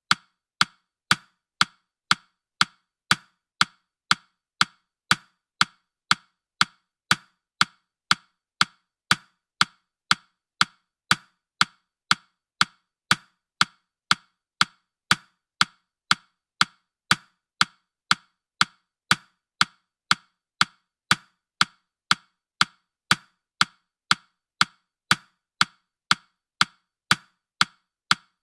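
Countdown timer's clock-tick sound effect: a steady run of short, sharp ticks, two a second, each one alike.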